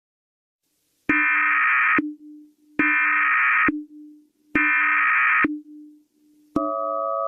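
Emergency Alert System header tones: three harsh digital data bursts, each about a second long and about a second apart, followed by the steady two-tone attention signal, which starts about six and a half seconds in. A faint low hum runs underneath.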